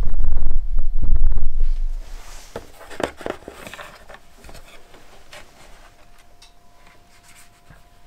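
Small clicks and rubbing of a stepper-motor cable connector being handled and plugged into a CNC controller box, after a heavy low rumble in the first two seconds. A faint steady whine runs through the second half.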